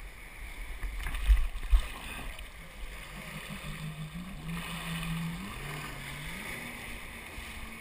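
Jet ski engine running, its pitch stepping up and down as the throttle changes, over a steady wash of water and wind noise. Two heavy low thumps come about a second in.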